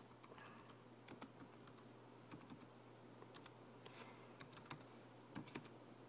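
Faint, irregular key clicks of a password being typed on a 2010 13-inch MacBook Pro's keyboard at its login screen.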